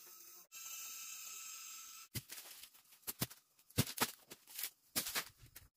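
Irregular crunching and rustling of dry plant matter, starting about two seconds in, after a steady high hiss.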